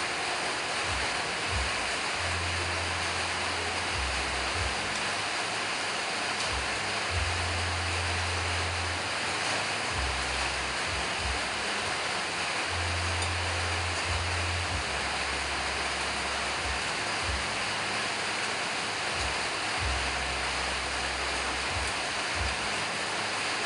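Steady rushing background noise, even across high and low pitches, with a low rumble that comes and goes every few seconds.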